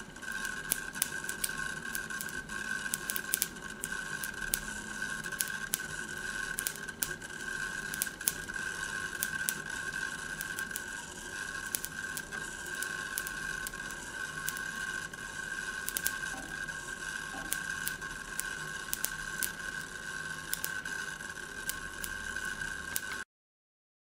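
A c. 1850 Barlow wheel spinning on battery current: irregular crackling clicks as its star-shaped spokes make and break contact with the mercury, over a steady high whine.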